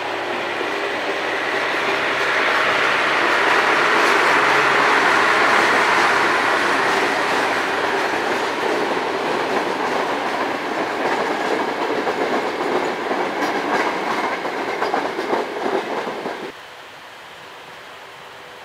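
Diesel shunting locomotive hauling passenger coaches past at close range: its engine drones as it goes by, then the coaches' wheels roll past, clattering over the rail joints. The sound cuts off suddenly near the end, leaving a quieter steady background.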